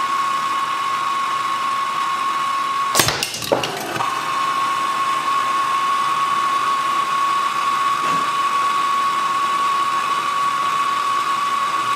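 Propane torch turned up high: a steady hiss with a thin whistling tone. About three seconds in, a .177 air rifle shot and the pellet striking and bursting a nearly full butane lighter give a quick cluster of sharp cracks within about a second.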